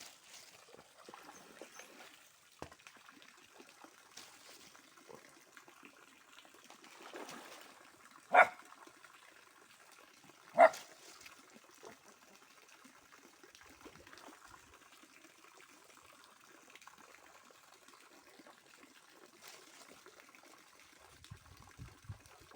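A dog barks twice, about two seconds apart, loud and short, over a faint steady trickle of water.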